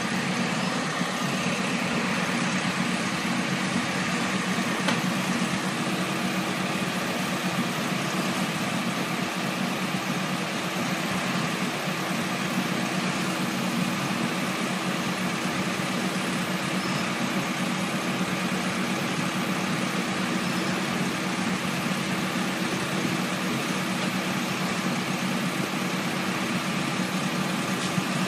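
Oxbo pea combine harvester running steadily, its engine and threshing machinery making a constant drone with a few steady hum tones and no change in speed.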